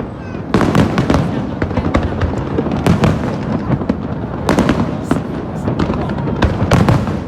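Aerial fireworks bursting in a rapid series of sharp bangs and crackles, many going off close together without a pause.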